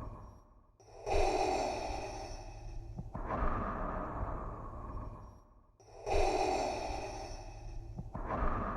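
Darth Vader's mechanical respirator breathing, a hissing breath drawn through a scuba regulator: two full slow cycles, each a sharper, hissier inhale followed about two seconds later by a softer exhale, with a short pause before each inhale.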